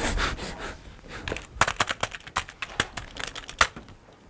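A sheet of paper rustling and crinkling close to the microphone in a string of irregular sharp crackles.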